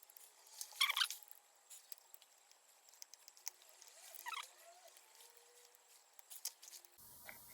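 Small scratchy crackles and clicks from soldering work on a circuit board: a soldering iron and tools working the capacitor's solder joints. The crackles come in short bursts, loudest about a second in and again around four seconds in.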